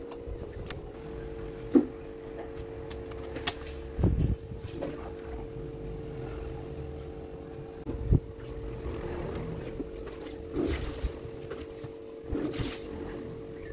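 A steady hum with a low rumble, broken by scattered short knocks and clicks about every two to four seconds.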